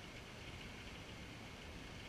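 Steady rain falling on wet ground and standing water: an even hiss with a few faint drop ticks.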